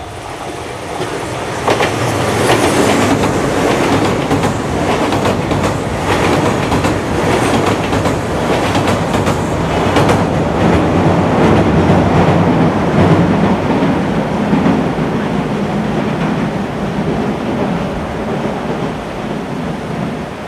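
Kintetsu Minami-Osaka Line train passing over the railway bridge, its wheels clattering over the rail joints. It swells about two seconds in, stays loud for about ten seconds, then slowly fades.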